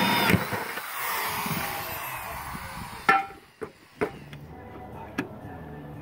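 Corded electric drill with a hole saw cutting into an aluminum fence rail; the cut stops after a moment and the released drill winds down with a falling whine over a couple of seconds. A few sharp knocks of metal pieces being handled follow.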